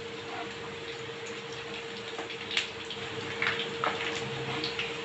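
Onion bondas deep-frying in hot oil: a steady bubbling sizzle with scattered crackling pops.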